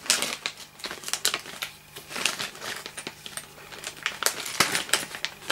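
Clear plastic parts bags crinkling and rustling as they are handled and lifted out of a cardboard kit box, with many small sharp clicks.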